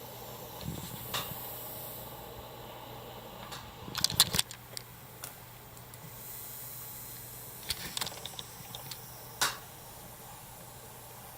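Adam A8x powered studio monitor putting out computer-induced interference: a steady low hum under hiss, broken by short digital clicks and crackles, loudest in a cluster about four seconds in. The noise comes from the monitor sharing a power outlet with the computer.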